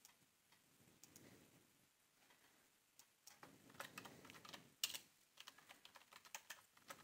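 Faint computer keyboard typing: a few scattered clicks, then a quick run of keystrokes from about three seconds in as a name is typed, with one louder keystroke partway through.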